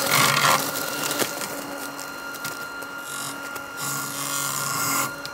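Mammotion Luba 2X AWD robotic mower running, its electric motors giving a steady whine as it drives and mows, with short rough bursts of noise at the start and around three to five seconds in as the blades cut through grass, leaves and twigs.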